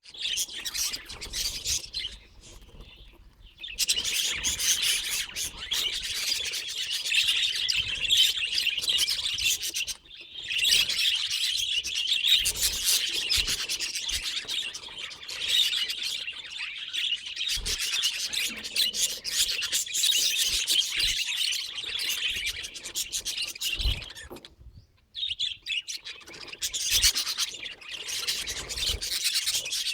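Budgerigar chattering and warbling in a rapid, scratchy stream of chirps, with a few short pauses.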